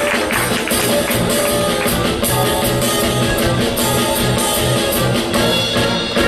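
Instrumental band music with a steady drum beat and sustained pitched notes.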